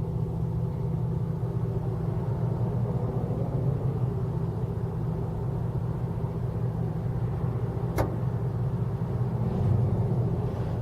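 Car running with a steady low engine and road hum, heard from inside the cabin, and a single sharp click about eight seconds in.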